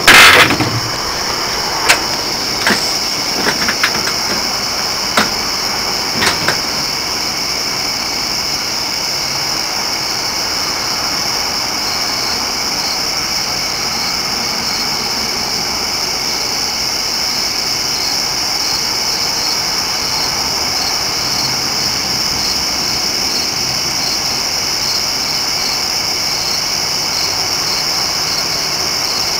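Night insect chorus, a steady high-pitched trilling drone over a soft background hiss. A few scattered knocks and clicks in the first few seconds.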